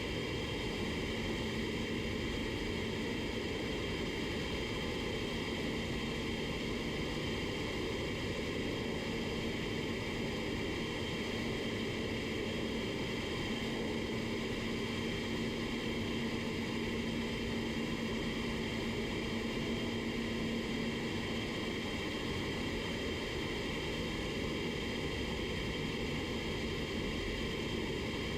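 Steady rushing air of a paint spray booth's ventilation, with a low hum that stops about three quarters of the way through.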